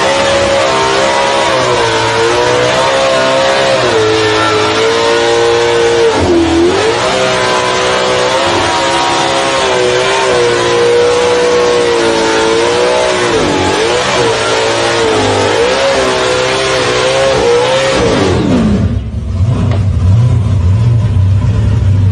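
Supercharged engine of an old Holden sedan held at high revs through a smoky burnout, the revs wavering and dipping sharply about six seconds in and twice around thirteen to fourteen seconds in. Near the end the revs fall away to a deep, lumpy rumble.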